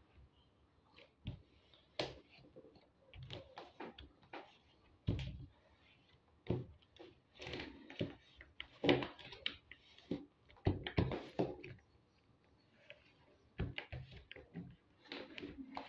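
Sheet of paper being folded and creased by hand on a table: irregular rustles and slides of the paper, with light knocks as the hands press the fold flat.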